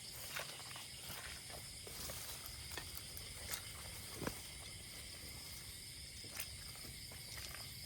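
Steady chorus of night insects, a high, even buzzing hiss in several pitches, with scattered light clicks and rustles.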